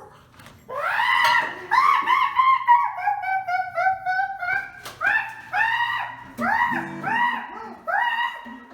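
Ape-like hooting and screeching: a quick series of high, rising-and-falling calls, with a run of shorter, falling hoots in the middle.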